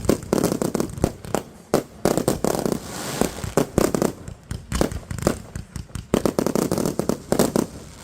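Backyard consumer fireworks going off: a rapid, irregular string of sharp bangs with crackling between them.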